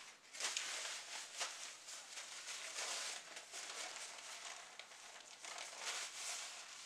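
Paper towel crinkling and rustling close to the microphone as it is crumpled and rubbed over the mouth and hands, a steady rustle with many small crackles.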